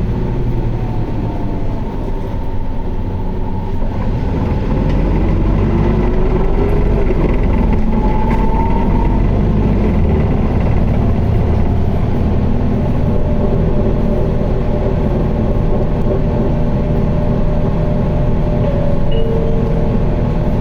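Running sound of an Isuzu QDG-LV290N1 city bus under way: a steady diesel engine drone with whining tones that rise in pitch a few seconds in, the automatic transmission held in fourth gear in power mode.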